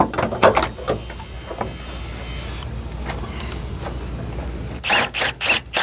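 Plastic clicks and knocks as a new coolant overflow tank is handled and pushed into place, over a steady low hum. A steady hiss runs through the middle, and another run of clicks and knocks comes near the end.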